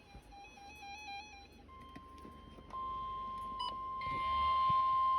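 Electronic beeping: a short stepping tone pattern, then a steady single-pitch alert tone that starts about two seconds in and grows louder, joined by further steady tones near the end. The long steady tone fits the NOAA Weather Radio warning alarm tone that comes before a new warning.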